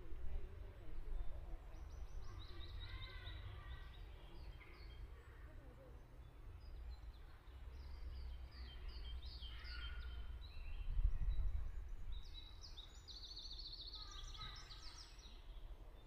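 Songbirds singing in three bursts of quick, high chirping notes, over a steady low rumble.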